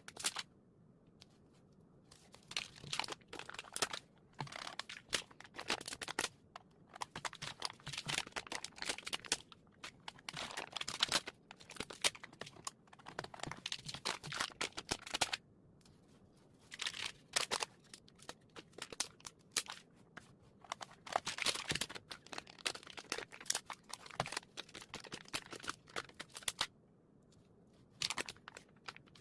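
Handling small plastic parts while putting together keycap clicker keychains: quick irregular clicks and rattles mixed with crinkling plastic packaging, in clusters with short pauses between.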